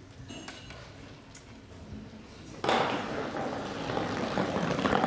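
A stock sliding along a summer Stocksport lane after a throw: a steady rolling hiss that starts suddenly about two and a half seconds in and grows a little louder toward the end.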